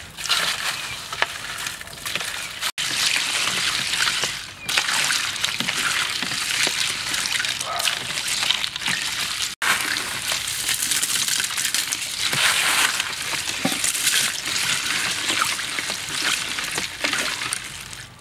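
Crushed ice, avocado pieces and liquid sloshing and clinking as they are stirred in a large metal bowl. The sound cuts out briefly twice.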